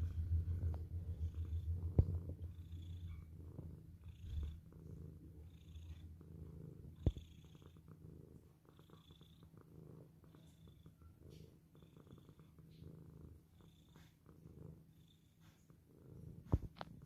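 Domestic cat purring, a low pulsing rumble that is loudest at the start and grows fainter. There are a few sharp clicks, one about two seconds in, one about seven seconds in and one near the end.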